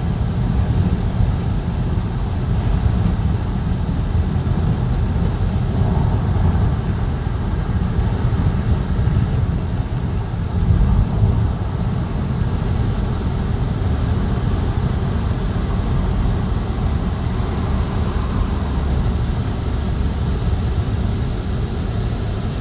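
Road and tyre noise inside the cabin of a moving car: a steady low rumble, briefly louder about eleven seconds in.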